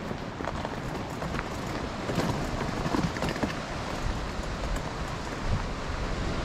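A gear-loaded pull wagon rolling over a rough dirt trail, its wheels giving a steady rumbling rattle with a few light knocks, under wind noise on the microphone.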